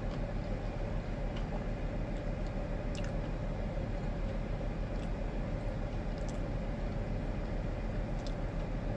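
A person chewing a fried chicken sandwich, a few faint wet clicks and squishes, over a steady low background hum.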